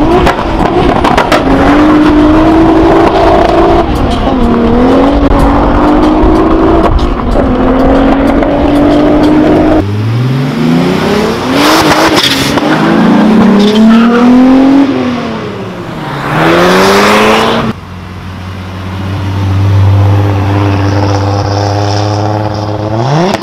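Turbocharged VR6 engines in Volkswagens: first a Mk2 Golf accelerating hard from a drag-strip launch, its note climbing and dropping back at each gear change, then a Corrado revving as it drives past with two short loud hisses, then another Golf running at a steady low idle before revving up sharply near the end.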